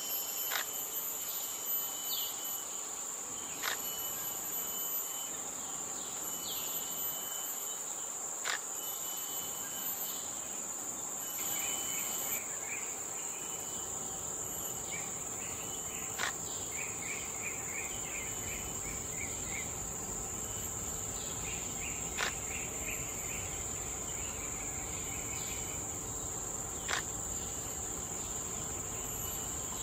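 Forest insects droning steadily at a high pitch, with a higher, on-and-off pulsing buzz above. A few sharp clicks and short runs of rapid chirping notes come through in the middle and second half.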